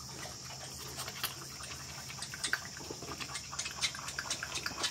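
Piglets rooting and scurrying through dry wood-shaving bedding: a run of quick, scratchy rustles and clicks that gets busier in the second half.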